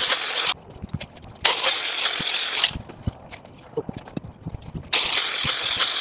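A corded power cutting tool cutting through 14-gauge welded wire mesh in three loud bursts: one ending just after the start, one about two seconds in, and one from about five seconds in. Short clicks and clinks of wire come between the cuts.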